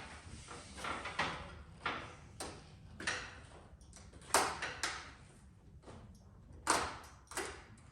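A string of sharp, irregular clicks and knocks, with two louder knocks in the second half, from hands working at the motorcycle's clutch lever and cable.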